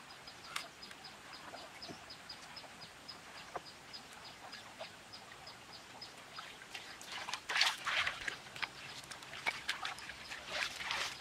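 Hands scraping wet gravel and splashing in shallow water, in bursts about seven seconds in and again near the end. Before that, a high, evenly repeated chirp, about four or five a second.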